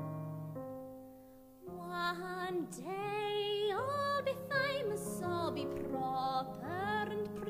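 Solo female voice singing with wide vibrato over piano chords; the chords fade away about a second and a half in and the voice enters just after, singing long wavering notes.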